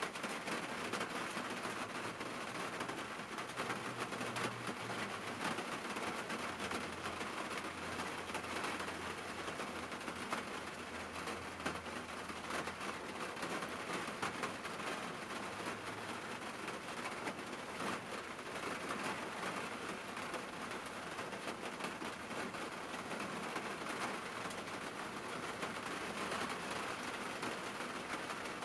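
Rain falling on a car's roof and windshield, heard from inside the car: a steady hiss made of many small drop ticks. A faint low hum comes and goes in the background during the first half.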